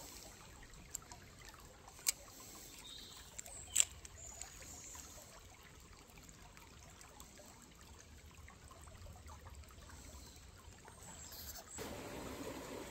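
Small stream trickling softly, with a few sharp clicks in the first four seconds, the loudest about four seconds in. Near the end the water sound steps up, fuller and louder.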